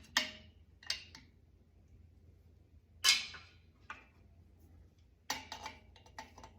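Metal clinks and clanks of threaded pipe fittings and tools being handled: a few separate knocks, the loudest about three seconds in with a brief ring, then a run of lighter ticks near the end.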